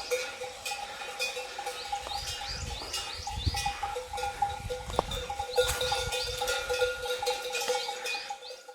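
Outdoor forest ambience: many short, high, rising chirps repeating over a steady pulsing hum, with scattered light clicks, fading out near the end.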